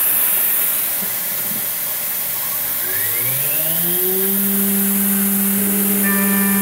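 A new VFD-driven ATC milling spindle spins up to 12,000 RPM. Its whine rises over about two seconds and settles into a steady hum, over the constant hiss of an air-driven mist coolant nozzle. Near the end, several higher steady tones join in.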